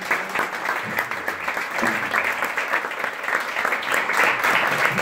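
Small audience applauding: many hands clapping in a dense, steady stream.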